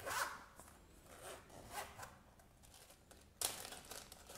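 A pen case's zipper being run shut in several short raspy pulls, then a sudden crinkle of a small plastic zip-lock bag of building blocks being picked up, about three and a half seconds in.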